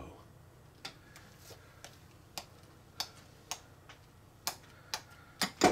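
A small plastic spoon clicking against a glass plate about ten times, at an irregular pace, as it slowly stirs curdled milk slime. The loudest click comes near the end.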